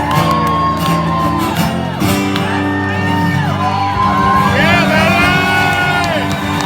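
A live band playing loud music, with shouts and whoops from the crowd.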